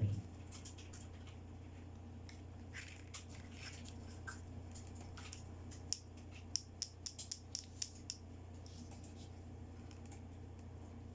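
Small plastic toy accessories being handled: light scraping and rustling, then a quick run of about eight sharp clicks, over a steady low hum.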